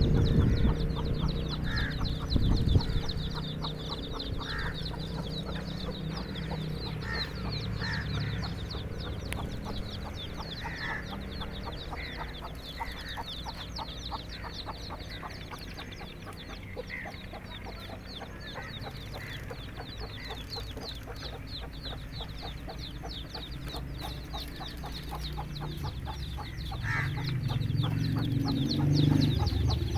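Mother hen clucking with her chicks, the chicks peeping high and fast throughout. It is louder and lower at the start and again near the end.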